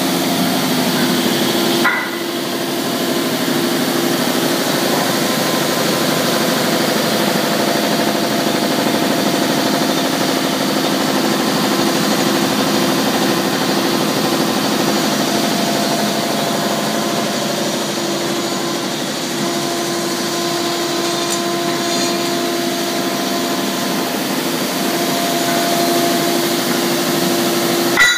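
Paul ERNST Pluto L deburring machine running steadily while deburring 40 mm steel plate, a constant machine hum with a steady tone, and a short clack about two seconds in.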